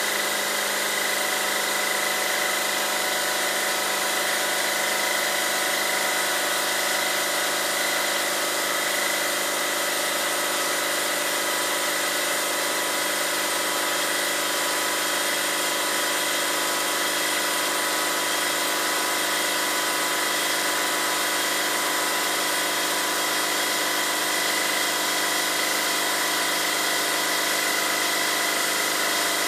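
A machine motor running steadily at an even level, with a constant high whine over a dense drone, from the benchtop plastic injection-molding setup during an injection run.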